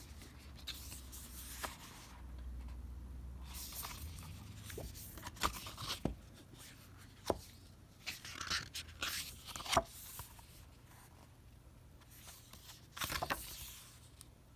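Handling noise from a glossy booklet and its packaging: pages and card rustling and sliding under the hand, with several sharp taps and clicks scattered through.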